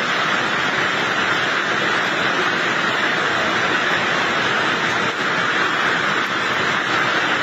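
Hailstorm with torrential rain and strong wind, making a steady, loud rushing noise with no separate hits standing out.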